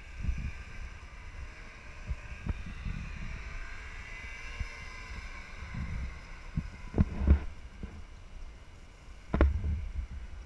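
A snowmobile engine whining in the distance, its pitch drifting slowly up and down, under low wind rumble on the microphone. A few knocks of handling noise, the two loudest in the second half.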